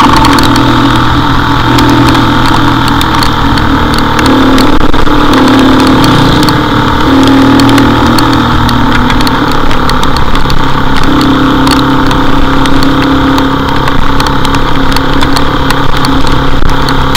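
Motorcycle engine running while riding along a wet road, its note stepping up and down with throttle and speed, under a steady rush of wind and road noise on the camera microphone, with scattered sharp clicks.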